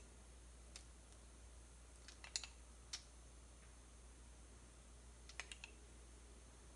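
Faint clicks of a small metal spoon tapping against a glass bowl of melted chocolate as it is scooped and drizzled: scattered single ticks and small clusters of two or three, over near silence.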